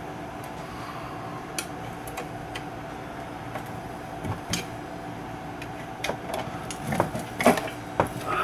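Scattered light clicks and taps of a screwdriver and fingers against a vintage tube radio's metal chassis and dial bracket, coming more often near the end, over a steady low hum.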